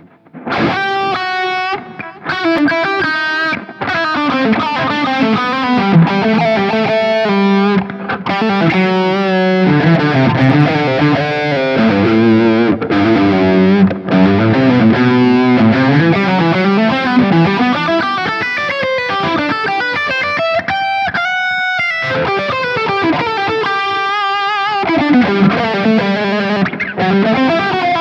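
Headless Strandberg-style electric guitar by Maxera Luthier, played through a BIAS FX amp simulation. It plays a fast improvised lead of quick single-note runs, with a few brief pauses between phrases.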